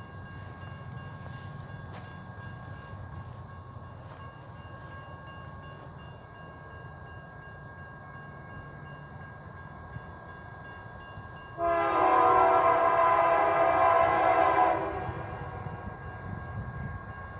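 Air horn of an approaching BNSF GE Dash 9-44CW freight locomotive sounding one long blast of about three seconds, about two-thirds of the way in, over the steady low rumble of the oncoming train.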